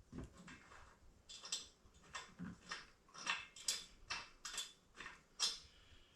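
A string of light, irregular clicks and taps, roughly two a second, from hand tools and metal parts of a transmission jack being handled during assembly.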